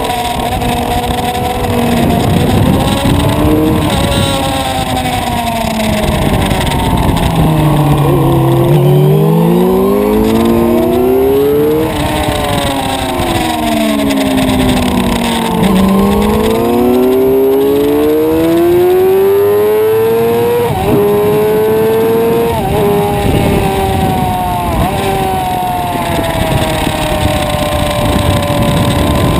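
Suzuki sport motorcycle's engine heard from on board at track speed, over wind rush. Its pitch drops twice under braking and downshifts and climbs again under throttle, with brief breaks in the rising note at upshifts near the end.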